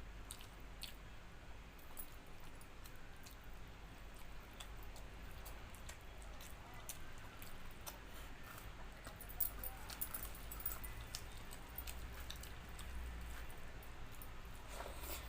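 A person chewing a meal of rice and dal, with scattered small wet clicks and mouth smacks over a faint low rumble.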